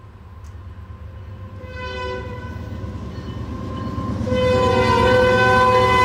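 Canadian Pacific freight locomotive's fouled air horn sounding as the train approaches, getting louder: a short blast about two seconds in, then a long blast from about four seconds in.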